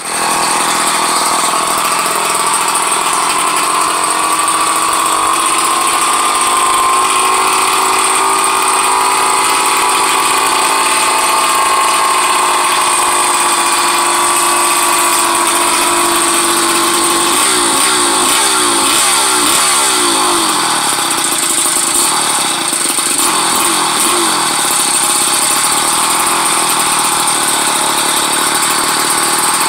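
Small two-stroke bicycle engine kit running at idle on a parked motorized bicycle, a steady loud drone whose speed wavers up and down for several seconds past the middle before settling again.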